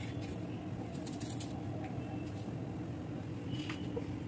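Kitchen knife slicing through bell peppers held in the hand, a few faint crisp cuts over a steady low background hum.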